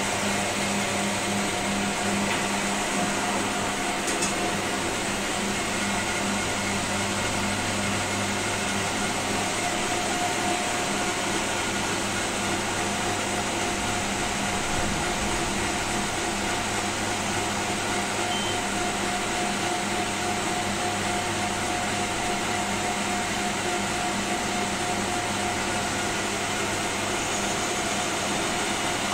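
Steady whir and hum of an electric motor in kitchen machinery running at a constant speed, with no stops or changes.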